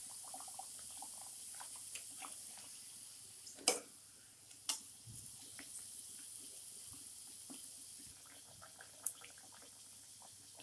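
A stuffed kachori deep-frying in medium-hot oil in a kadhai: a steady sizzle with small crackles. A sharp click sounds just under four seconds in, and a smaller one about a second later.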